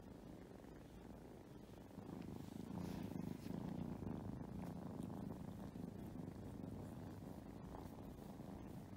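Kittens purring: a steady low rumble that gets noticeably louder about two seconds in.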